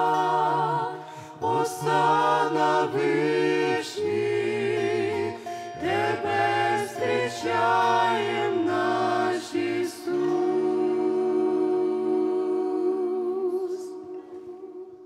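Mixed group of men's and women's voices singing a Ukrainian worship song in harmony, closing on a long held final chord that fades out near the end.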